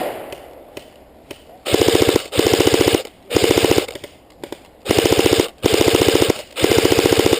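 Airsoft rifle firing on full auto in six short bursts of about half a second each, starting a couple of seconds in: a rapid, even string of shots in each burst.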